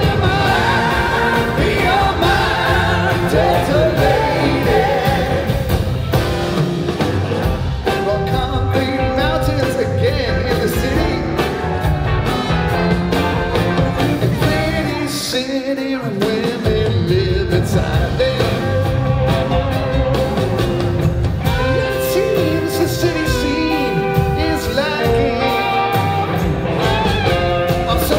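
Live rock band playing with electric guitars, bass, drums and lead vocals, heard from the audience in a theatre. The bass and drums drop out briefly about halfway through, then the full band comes back in.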